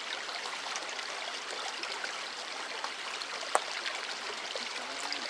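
Steady rushing hiss like flowing water, with one sharp click about three and a half seconds in.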